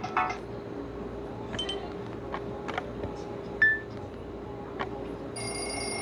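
Nokia 130 phone between ringtones: the last note of one tone, a few scattered clicks and one short high keypad beep, then near the end the next ringtone starts with a held high tone.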